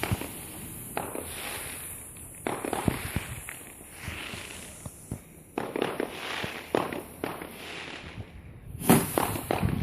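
Fireworks going off: an irregular string of sharp bangs and crackles, the loudest cluster near the end.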